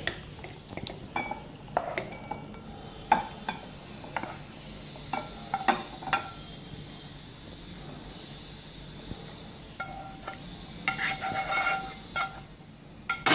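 A spatula scraping and knocking in a frying pan as stir-fried noodles are pushed out into a glass bowl, with scattered knocks and a faint steady sizzle underneath. Near the end comes a run of ringing clinks from the pan and spatula against the glass bowl.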